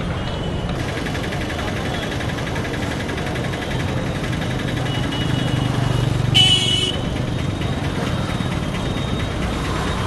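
Busy street traffic: motorcycle and rickshaw engines running steadily, with one brief vehicle horn honk about six and a half seconds in.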